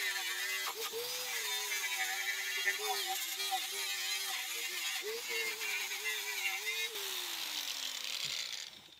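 Corded angle grinder with a twisted wire wheel scouring rust and old paint off a steel wagon frame. The motor's pitch dips and recovers as the wheel is pressed in, over a steady hiss of wire on metal. About seven seconds in it is lifted off and switched off, and the whine falls away as it spins down.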